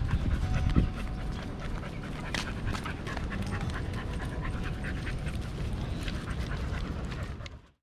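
Pit bull panting, with a steady noisy background and many short clicks; the sound cuts off just before the end.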